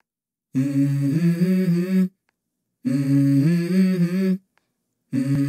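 A voice humming a melody in three phrases, each about a second and a half long with short pauses between, stepping between held notes. It is the opening of a background song.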